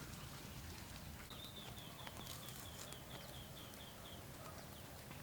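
A bird calling: a quick run of about a dozen short high notes, roughly four a second, starting about a second in and stopping about a second before the end, over a faint steady background hiss.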